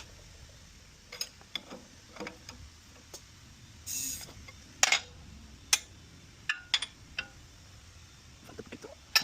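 Scattered sharp metallic clicks and knocks, a dozen or so spread over several seconds, with a short hiss about four seconds in.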